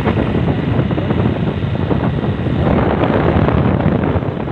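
Steady wind rush on the microphone mixed with the running noise of a moving vehicle.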